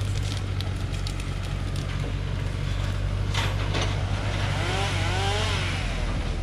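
Truck diesel engine idling with a steady low hum, under scattered wooden knocks of acacia logs being loaded onto the truck bed, the loudest about three and a half seconds in.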